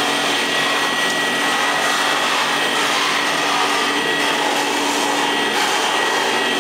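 Workshop grinding machine with a dust-extraction hose running steadily: an even rushing noise with a steady low hum and a high whine.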